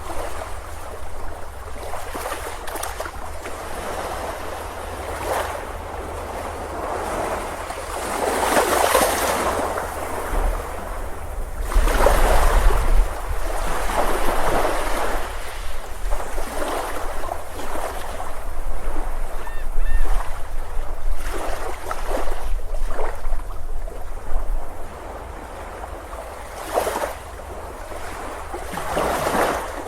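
Ocean surf on a beach: waves break and rush in one after another in loud swells, over a steady low rumble.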